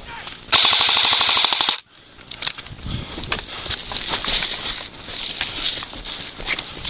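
Airsoft rifle firing a full-automatic burst of rapid, evenly spaced shots lasting just over a second and stopping abruptly, followed by scattered lighter clicks and rustling.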